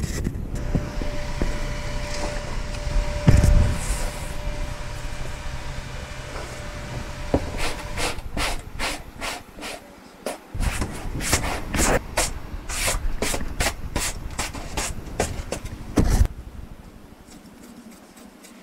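A brush scrubs crumbling old foam off a car headliner board in a run of quick, uneven strokes through the second half. Before that there is a steady background hum with handling noises and a thump, and another thump comes near the end of the strokes.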